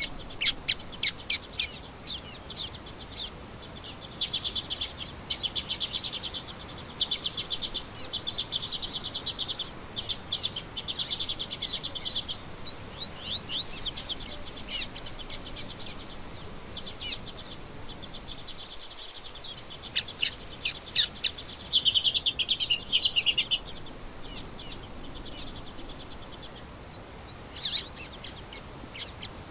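Songbirds chirping and singing: a steady stream of quick, sharp chirp notes, broken by several stretches of fast, buzzing trills lasting a second or two each.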